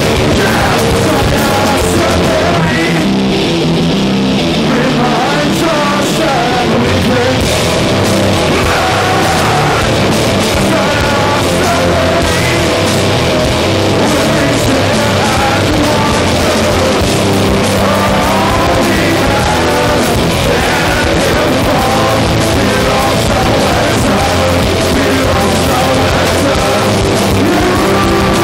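Live rock band playing loud through a club PA: distorted electric guitars, bass and drums, with vocals over them.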